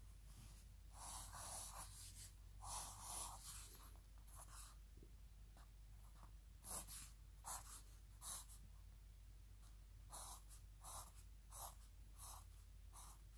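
Faint pencil strokes scratching on a notepad's lined paper. A few longer strokes draw ovals early on, then short strokes come about one every 0.7 seconds as straight lines are drawn.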